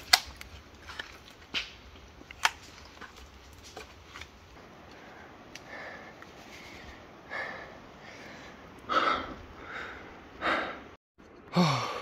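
A person climbing a pine tree: a few sharp cracks and knocks of boots and hands against the trunk and twigs in the first few seconds, then hard breathing in gusts about once a second from the climber up in the branches.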